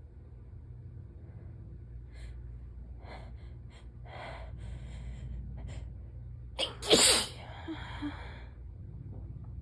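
A person sick with a cold-like illness sneezing: a few short, catching in-breaths build up, then one strong sneeze about two-thirds of the way through, trailing off in a breath.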